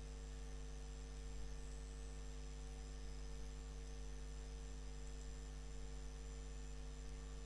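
Steady low electrical mains hum with a faint background hiss.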